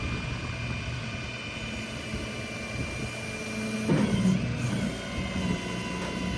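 Rollback tow truck running with a steady low hum and a high whine. About four seconds in the pitch shifts and the sound grows louder, settling onto a new steady tone, as the truck's load changes while unloading the shed.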